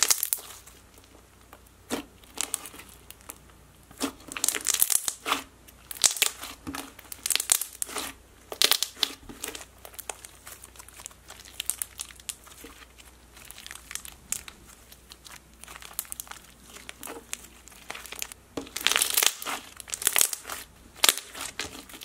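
Thick floam slime packed with rainbow foam beads being squeezed, pressed and stretched by hand, giving crunching and crackly bubble pops in irregular bunches, loudest near the start, around a fifth of the way in, and again near the end.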